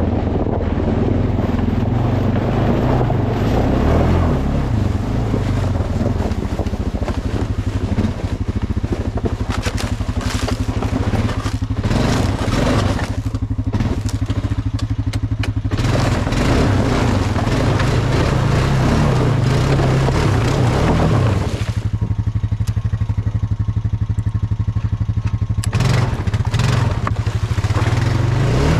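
Honda 420 ATV's single-cylinder engine running steadily at low speed over rough trail. Scraping and clattering from leaves, brush and the machine's frame come in bursts through the middle and again near the end.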